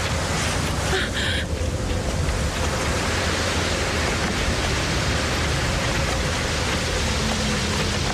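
Steady rushing noise with a low rumble beneath it and a faint held tone; a short, brighter hiss comes about a second in.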